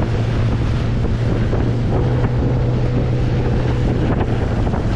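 Bass boat's outboard motor running steadily with a constant low hum, under heavy wind buffeting the microphone.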